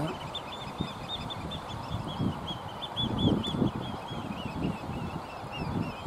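Eurasian oystercatchers calling: a rapid, unbroken run of short, shrill piping calls.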